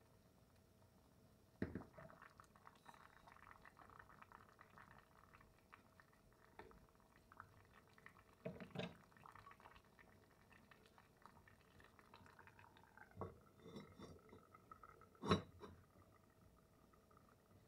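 Wooden spoon stirring thin braising liquid in an enameled cast-iron Dutch oven: soft sloshing and bubbling with a few light knocks of the spoon against the pot. Near the end the enameled lid goes on with a sharp clank, the loudest sound.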